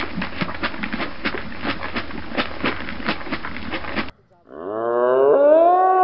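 Irregular clicks and taps over a steady hiss, cut off suddenly about four seconds in. After a brief silence a cow moos, loud, rising in pitch and then held.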